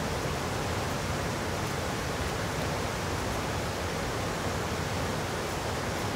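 Steady, unbroken rushing of running water in a snowy mountain gorge.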